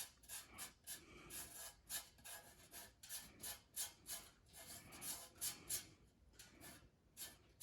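Faint, irregular rubbing and scraping of close handling, a few short scrapes a second with brief gaps, as the air compressor is handled and looked over.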